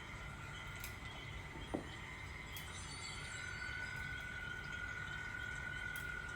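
Steady chirring insect chorus: a constant high drone with faint pulsing above it, and a second tone joining about three seconds in, over a low rumble. A single sharp tap about 1.7 seconds in.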